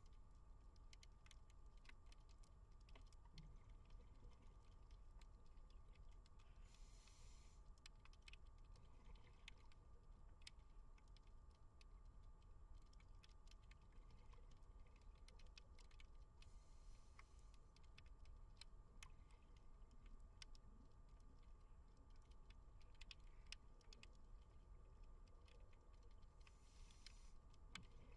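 Faint underwater ambience: a low steady rumble with many small scattered clicks and crackles. A short hiss comes three times, about ten seconds apart, typical of a scuba diver's regulator breathing.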